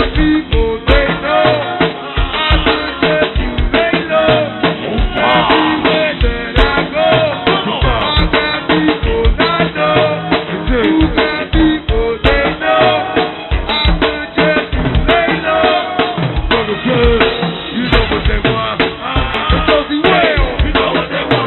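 Live go-go band playing, a drum kit driving a dense, steady beat under other instruments. It is a poor-quality PA tape recording with a dull top end.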